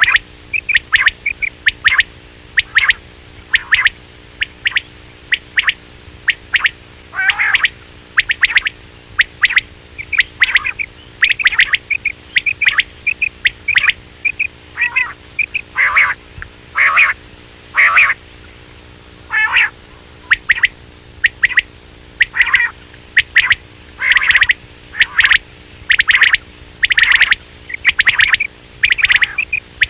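Recorded quail calls used as a hunting lure: short, sharp notes repeated over and over, often in quick groups of two or three, over a faint steady hum.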